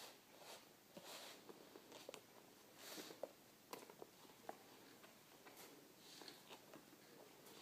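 Near silence in a small room, with faint scattered light taps, clicks and rustles.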